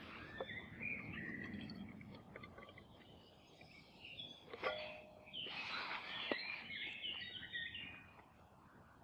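Woodland birds singing in short chirps and warbles, with a few light clicks and knocks as an AeroPress coffee maker is handled and its plunger pushed down.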